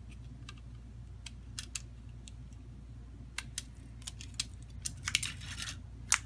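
Scattered small clicks and taps from an opened Samsung Galaxy A02s being handled with fingers and tweezers, with a short cluster of rustling scrapes about five seconds in and a sharper click just before the end, over a steady low hum.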